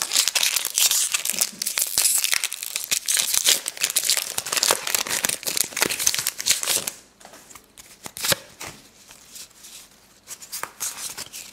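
Foil Pokémon booster pack wrapper being torn open and crinkled, a loud dense crackle for about seven seconds. Then softer rustling of the wrapper and cards, with one sharp tap about eight seconds in.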